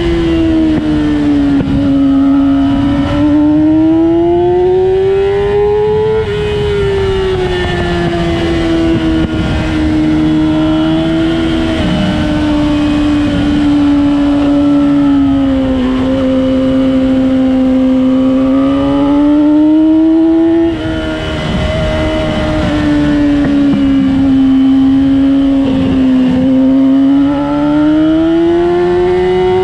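A vehicle engine being driven hard around a road-racing circuit at a track day. Its pitch climbs under acceleration and sags when lifting, and drops suddenly twice: about six seconds in and again past the twenty-second mark.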